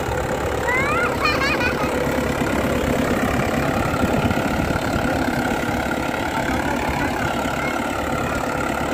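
Mahindra 585 DI Turbo tractor's diesel engine running steadily as the tractor pulls a tillage implement through ploughed soil. A few short rising chirps sound briefly about a second in.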